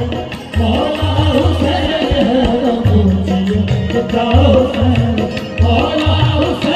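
Live qawwali music: harmoniums carrying the melody over a steady tabla beat, with singing.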